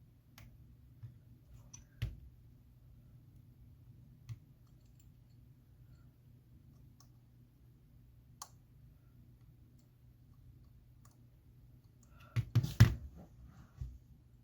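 Small, sparse clicks of a precision screwdriver working the pentalobe screws at the bottom of an iPhone X, over a faint steady hum, then a louder cluster of clicks and taps near the end.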